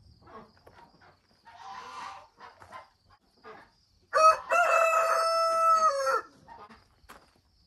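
A rooster crows once: a loud call of about two seconds that starts sharply, holds a steady pitch and drops off at the end.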